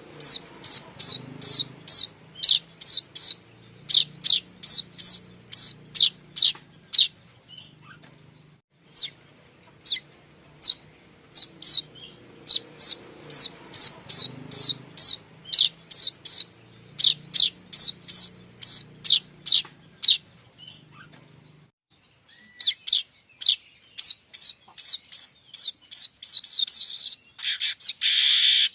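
Streaked weaver (manyar kembang) calling: long runs of short, sharp high chirps about two a second, broken off twice, turning into a denser, buzzy chatter near the end.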